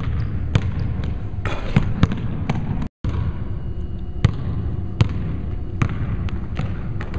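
A basketball dribbled on a hardwood gym floor: sharp, separate bounces about one or two a second. Near three seconds in, the sound cuts out for a moment.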